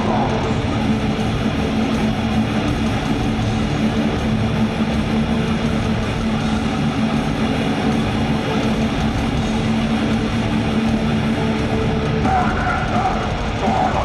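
Live heavy metal: a distorted electric guitar through Marshall amplifiers holding a long, droning chord at a steady loud level, with a shouted voice coming in near the end.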